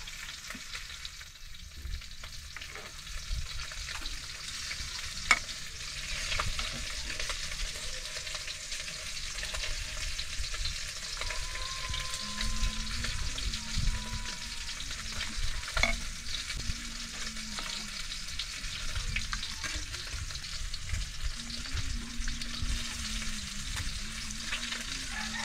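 A metal ladle scooping fish soup out of an aluminium pot into a steel bowl. It knocks against the metal a few times, with a sharp clink about five seconds in and another near sixteen seconds, over a steady hiss.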